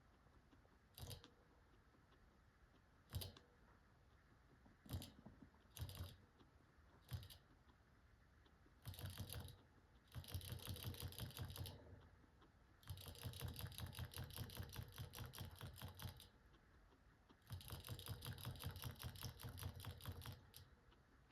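Guinea pig crunching dry pellets: a few single crunches, then several bouts of rapid, even chewing, each lasting one to three seconds.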